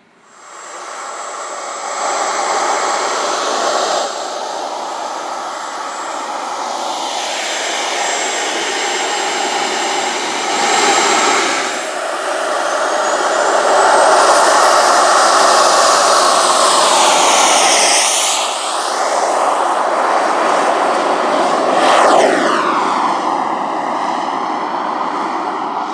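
Jet engine of a large radio-controlled model Canadair CT-114 Tutor, running loud with a high whine. Its pitch rises about halfway through, and twice in the second half it sweeps down in pitch as the model passes by.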